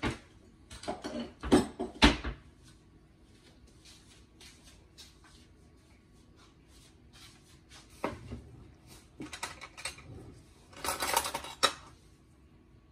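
Dishes and metal spoons being handled, clattering and clinking: several sharp knocks in the first two seconds, scattered light clicks, then a dense run of rattling clinks about eleven seconds in.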